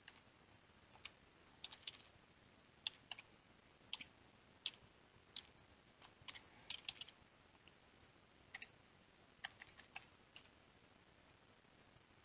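Faint computer keyboard keystrokes: irregular single taps and short runs that stop about ten seconds in.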